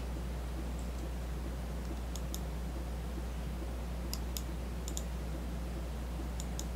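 Computer mouse clicking a few times, several clicks in quick pairs, as edges are picked in CAD software. A steady low electrical hum runs underneath.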